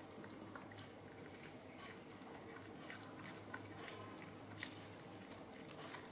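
Faint, scattered small clicks and smacks of two baby monkeys chewing and pulling at jackfruit pulp, over a steady low hum.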